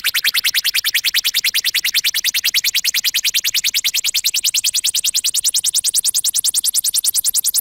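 Synthesized futuristic sci-fi sound effect: a fast electronic pulsing, about ten pulses a second, whose pitch sweeps slowly upward.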